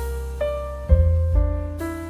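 Background piano music: notes and chords changing about every half second over a bass line.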